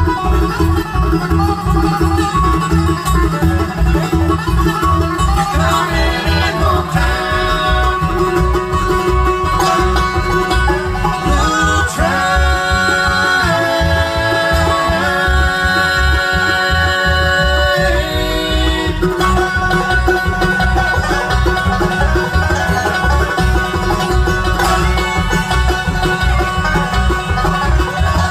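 Bluegrass band playing live through a PA, with banjo, fiddle and acoustic guitar over a steady low beat. Long held notes run through the middle stretch.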